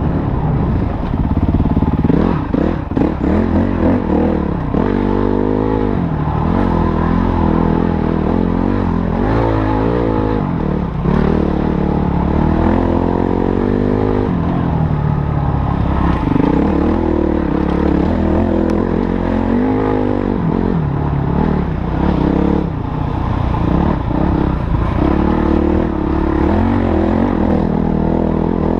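Motorcycle engine running while being ridden, its pitch rising and falling again and again as the throttle opens and closes.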